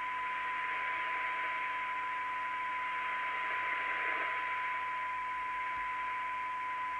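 A steady, unbroken test tone over hiss, heard from the speaker of a DNT Contact 40 CEPT CB radio that is receiving a signal generator's test signal during receiver alignment, as its IF coils are being tuned.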